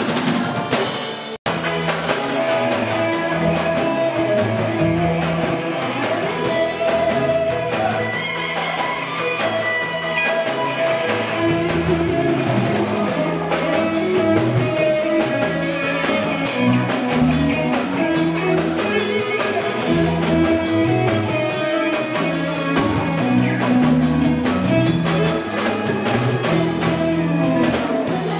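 Live rock band playing an instrumental passage on electric guitar, electric bass and drum kit, with a momentary dropout about a second and a half in.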